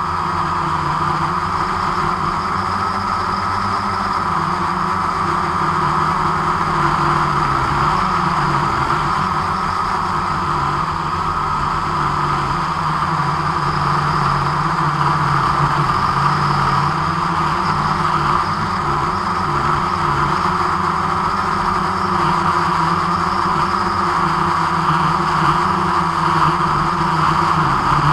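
Drone motors and propellers whirring steadily in flight, a continuous hum whose pitch wavers slightly, picked up by the aircraft's own camera.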